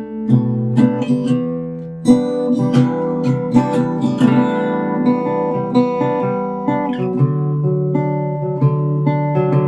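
1943 Harmony Melody Ranch acoustic guitar, with a solid spruce top, a birch body and X-bracing, played as an instrumental with picked notes and chords. A hard strummed chord comes about two seconds in.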